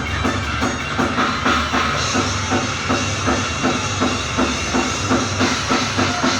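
Heavy metal band playing live: a fast, steady drum beat under a dense wall of distorted guitar and bass.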